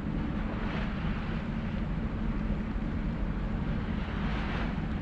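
Steady low rumble of a cruise ship's engines and machinery, with wind hissing on the microphone in two swells, about a second in and near the end.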